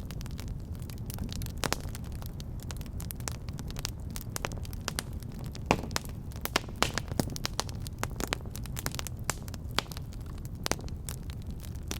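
Wood fire burning in a fireplace: a steady low rumble of flames with irregular sharp crackles and pops, a louder pop a little before the middle.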